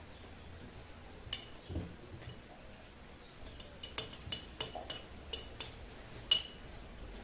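A metal utensil tapping against a glass jar: one ringing clink, then a quick run of about ten clinks a couple of seconds later, the last the loudest, as chopped onion is knocked off into the jar.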